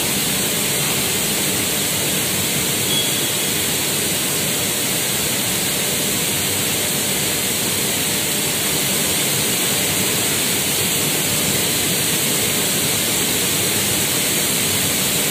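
Steady, even rushing noise with no rhythm or breaks while a turntable stretch-film wrapping machine runs, turning a water tank and drawing film around it.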